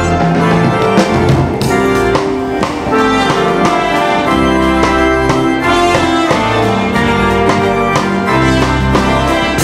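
Live gospel band music: keyboards holding chords over a bass line, with a drum kit keeping a steady beat.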